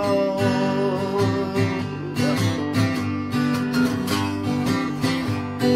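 Acoustic guitar strummed in a steady rhythm, an instrumental passage of a folk song between sung lines.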